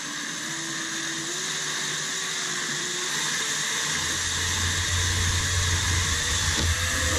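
Cordless drill running at low speed, its motor whine stepping up in pitch as the trigger is squeezed, while a 1/8-inch bit cuts through a boat's fiberglass gunwale. A deeper rumble joins about four seconds in.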